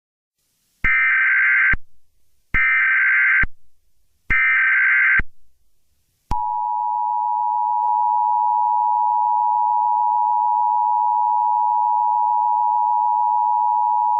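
Emergency Alert System alert opening: three short bursts of SAME header data, each just under a second with short gaps between, starting about a second in. About six seconds in, the steady two-tone EAS attention signal begins and holds.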